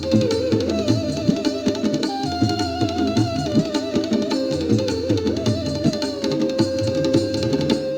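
Instrumental Indian-style background music: an ornamented, wavering melody over hand-drum strokes and plucked strings, settling on one long held note near the end.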